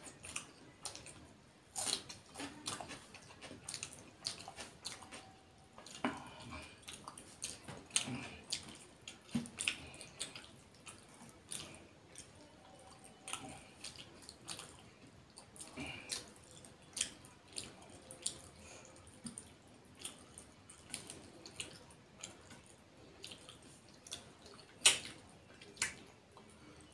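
Close-up wet eating sounds: fingers squelching rice and fish curry on a plate, and lips smacking and sucking while chewing, as irregular short clicks and smacks with a louder smack near the end.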